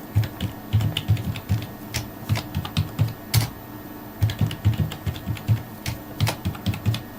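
Typing on a computer keyboard: a run of quick keystrokes with a short pause about halfway through, as a password is entered.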